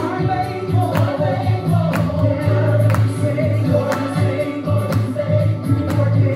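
Gospel music: a song with choir-like singing over a strong bass and a steady beat.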